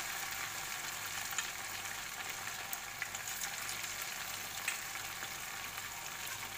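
Cornflour-and-maida-coated chicken pieces deep-frying in hot oil in a small kadhai. The oil sizzles steadily, with a few sharp crackles now and then.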